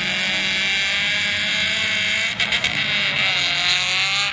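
Several wreck-race cars driving flat out across a dirt track, their engines revving together, with pitches rising and falling and overlapping, over a steady low engine hum.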